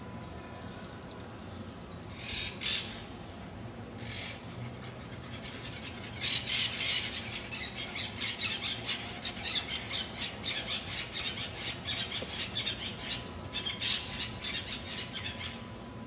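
Parrots squawking: a few separate calls early, then from about six seconds in a dense, rapid run of squawks that stops shortly before the end.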